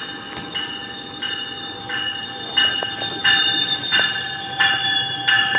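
Warning bell on an arriving GO Transit bi-level cab car ringing steadily, about one stroke every 0.7 s, growing louder as the train rolls in, over the rumble of the train.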